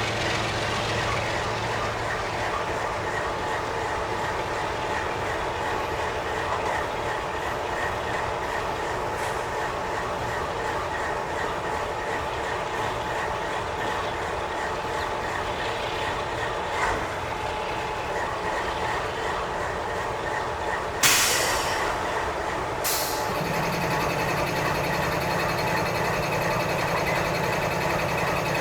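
Double-stack intermodal train's cars rolling past, a steady rumble of steel wheels on rail with faint steady whining tones. Late on comes a sudden loud burst of noise, then a shorter one about two seconds later, after which the rolling sound changes, with a low steady hum added.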